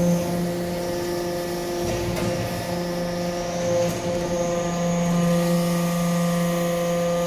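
Hydraulic metal-chip briquetting press running: the steady, even hum of its hydraulic pump and motor, with a couple of faint knocks about two and four seconds in.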